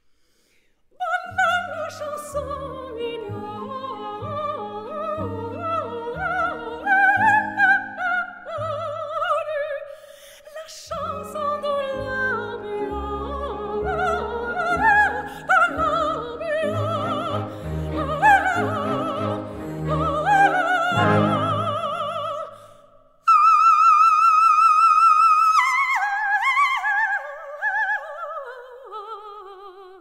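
Coloratura soprano singing fast florid runs with a symphony orchestra, breaking off briefly about a third of the way in. Near the end the orchestra drops out and the soprano holds a long, loud high note with vibrato, then sings a falling stepwise run that fades away.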